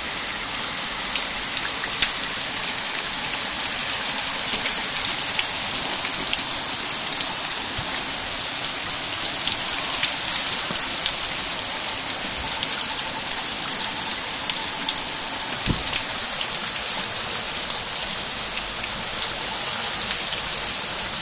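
Torrential rain falling hard on tarmac, stone steps and garden foliage: a dense, steady hiss with countless individual drop splashes.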